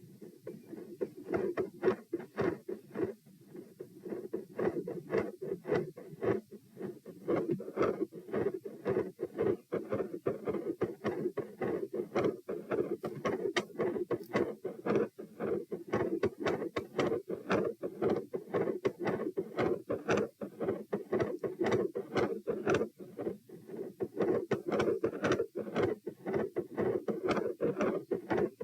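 Heart sounds recorded on the chest: a fast, not very loud heartbeat of paired dull thuds, beat after beat. Their strength swells and fades in a pronounced phasic pattern that follows the breathing.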